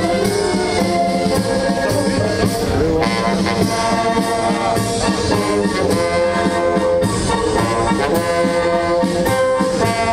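Brass band playing a march-like tune, with held brass notes over a steady beat.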